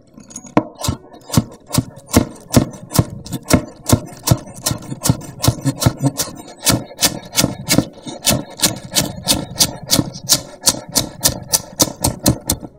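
Chef's knife chopping scallions on a wooden cutting board: a steady run of crisp knocks, about three a second, as the blade cuts through and hits the board.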